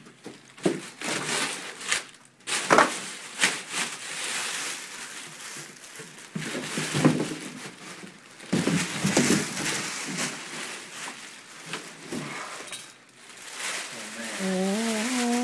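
Packaging being handled while an amplifier is unboxed: irregular rustling and crinkling with occasional sharp knocks. A man starts humming about a second before the end.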